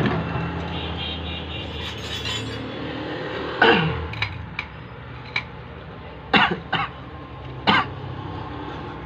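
Several short knocks and clinks from the metal housing of a car alternator being handled and worked apart, spread through the middle and later part, over a steady low hum.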